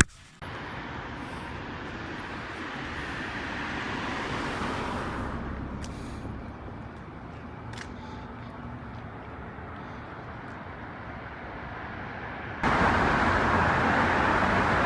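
Road traffic noise from passing cars: a steady rumble and hiss that swells about four to five seconds in as a vehicle goes by, then eases. Near the end it cuts suddenly to a louder, denser sound.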